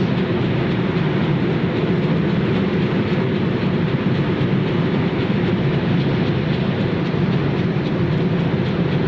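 Breakfast cereal extrusion line machinery running: a steady, loud mechanical drone of motors and conveying equipment, with a faint, rapid, even ticking over it.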